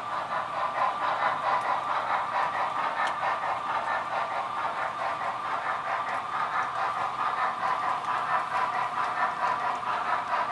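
A train running: a steady, even rattling noise with no breaks.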